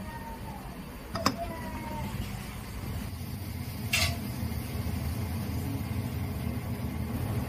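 Steady low kitchen rumble, with a single sharp ringing clink of metal about a second in and a brief click about four seconds in.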